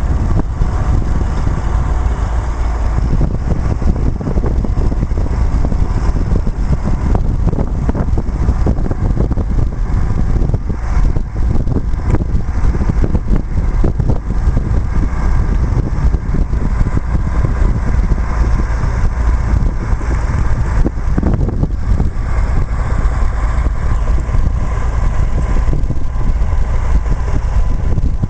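Self-propelled field sprayer's engine running steadily while its suspended aluminum boom arms fold, with heavy wind noise on the microphone.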